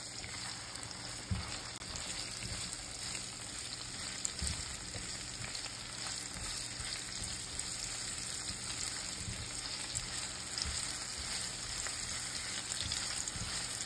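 Sliced sausage and diced onion frying in oil in a pan, a steady sizzle, with a silicone spatula stirring them and now and then knocking against the pan.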